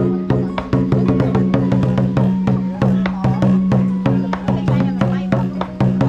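Lion-dance drum beaten with wooden sticks in a fast, steady beat, the drumhead ringing with a low tone under the strikes: the drumming for a lion dance (múa lân).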